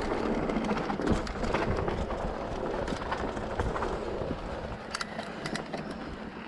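Mountain bike rattling down a cobbled lane: the tyres clatter over the stone setts and the chain and frame rattle, with a cluster of sharp ticks about five seconds in. The rattle grows quieter toward the end as the bike slows.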